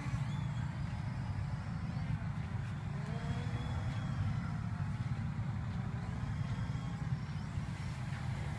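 Hubsan X4 H501S quadcopter flying overhead, the faint whine of its motors rising and falling, under a steady low rumble.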